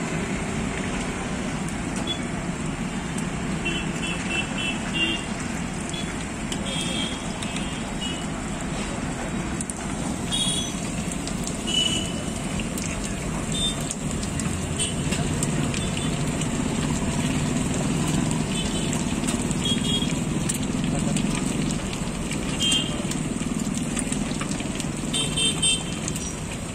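Busy roadside street-food ambience: a steady rumble of traffic and voices, with short runs of metallic clinks from a spatula striking a griddle every few seconds.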